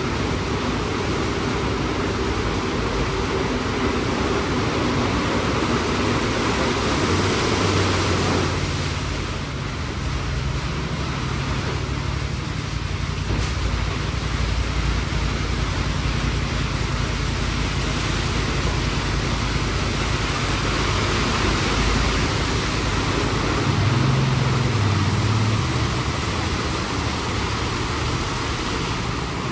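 WashTec SoftCare² Pro rollover car wash gantry running through its ShineTecs polish application stage: a steady spraying hiss with machine hum. About a third of the way in the sound shifts and a low hum comes in.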